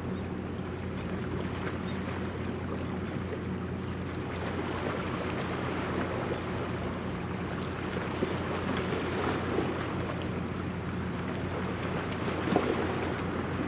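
Helicopter destroyer JS Kaga passing close by: a steady low drone of its engines and machinery made of several even hum tones, over a wash of wind and water noise, with a brief knock near the end.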